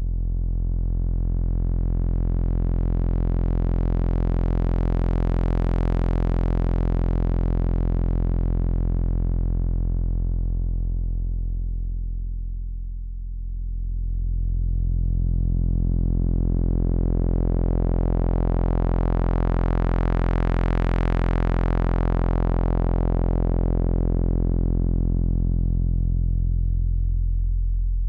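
Low sawtooth drone from a 3340 VCO running through a diode ladder low-pass filter, its cutoff swept slowly up and down by an LFO. The tone brightens and darkens twice, dullest about halfway through, and the second sweep is brighter than the first.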